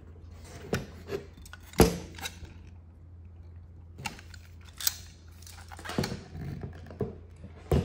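Hand-handling of an air gun: scattered clicks and knocks of its parts, about eight in all, the loudest about two seconds in, over a steady low hum.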